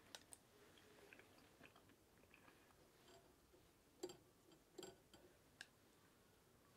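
Near silence broken by a few light clicks and taps of chopsticks against a wire grill and a lacquer bowl as grilled mochi is picked up and placed in the bowl, the sharpest taps about four seconds in and just before five seconds.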